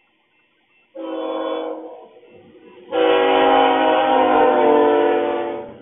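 Canadian Pacific freight locomotive's air horn sounding a short blast about a second in, then a long blast from about three seconds in that ends just before the close, with the locomotive's low rumble underneath as it draws close.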